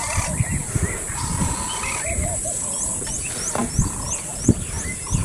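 Wind buffeting the microphone in low gusts and thumps, with birds calling; one bird repeats a short, high rising chirp about three times a second from about halfway through.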